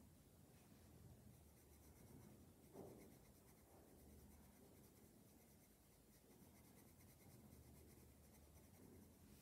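Faint scratching of a black colored pencil on drawing paper, with one slightly louder soft knock about three seconds in.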